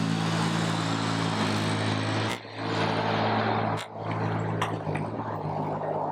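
A steady engine hum, broadly like a vehicle running, with sharp clicks about two and four seconds in.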